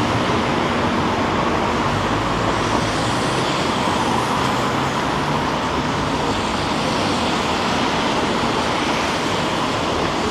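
Street traffic noise: a steady wash of passing vehicles, with a low engine hum that fades out about six seconds in.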